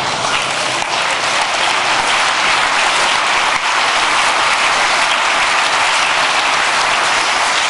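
A large audience applauding, steady and sustained.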